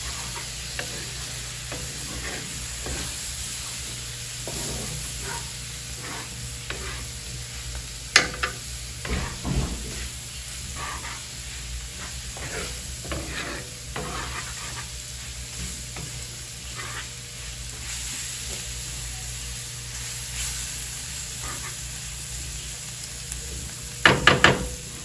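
Meat with tomato sizzling and frying in a pan on a wood-fired stove, stirred with a spoon that scrapes across the pan. A few sharp knocks of the utensil on the pan about eight seconds in and a quick cluster of them near the end.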